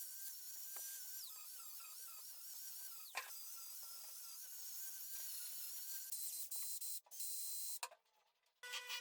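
A small high-speed power tool whining, its pitch wobbling and dipping again and again as it works the metal. The sound changes and cuts off about seven seconds in, and after a short silence a different steady whine starts near the end.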